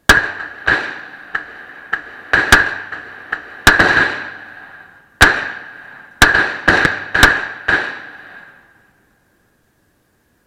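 Glock 42 .380 pistol firing a string of about a dozen irregularly spaced shots, each followed by a short echoing tail. The shooting stops about eight seconds in.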